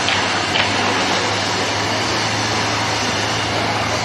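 Toy police car running with a steady mechanical whirr and a constant low hum.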